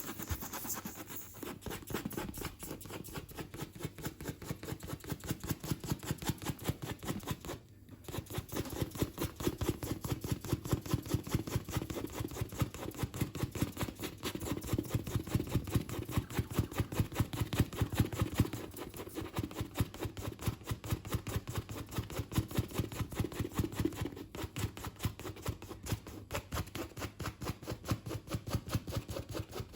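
Rubber inner tube being scuffed with a patch-kit scrubber in quick back-and-forth strokes, several a second, with a brief pause about eight seconds in: the tube is being roughened around the puncture to take rubber cement and a patch.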